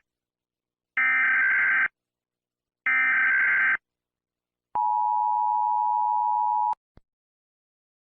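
Emergency Alert System signal: two harsh digital header bursts, each about a second long, followed by the two-tone EAS attention signal held steadily for about two seconds. A brief click follows it.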